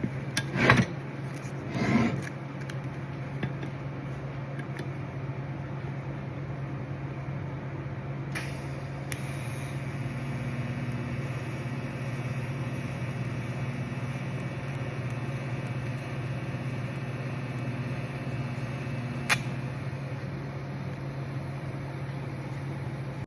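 TIG welder humming steadily, with a few short clatters in the first two seconds. About eight seconds in, a DC TIG arc on thick mild steel starts with a quiet high hiss and runs about eleven seconds, cutting off with a sharp click.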